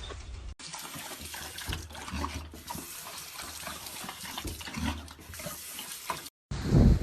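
Running water with scattered splashes and drips. It cuts off abruptly near the end, and a much louder noisy sound starts just after.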